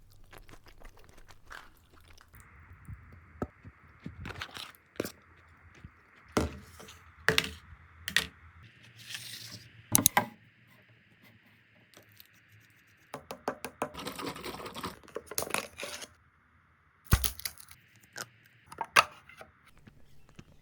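Handling of food packaging and containers: scattered clicks, taps and knocks with bursts of tearing or crinkling, densest about two thirds of the way in, over a faint steady hiss.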